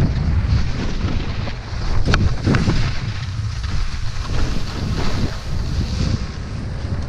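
Wind rushing over the microphone of a skier filming on the way down, mixed with the swish of skis turning through snow. A single sharp click about two seconds in.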